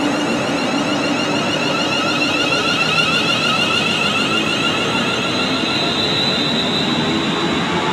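London Northwestern Railway Class 350 Desiro electric multiple unit running along the platform, its traction motors giving a steady, wavering whine of several tones over the rumble of the wheels on the rails. The highest tone rises slightly about five seconds in.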